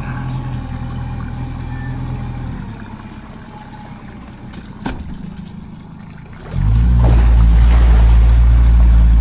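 Boat motor running with a steady low hum that drops away about two and a half seconds in, with a single click in the quieter stretch. About six and a half seconds in a much louder, steady low motor drone starts and holds.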